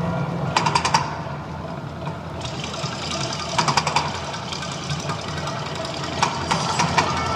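Mirage volcano show: a steady low rumble, with three short clusters of sharp rattling clicks over it.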